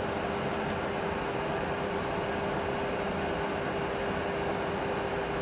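Steady cockpit background noise in a Boeing 737 Classic full flight simulator during an approach: an even rushing hiss with a constant low hum.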